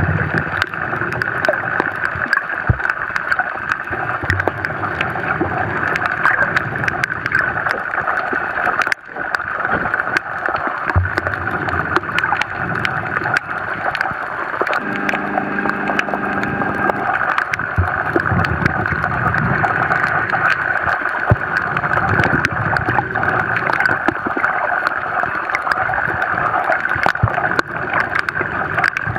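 Underwater sound: a steady rushing water noise with many small clicks and crackles. A brief hum of several steady tones comes in about halfway through.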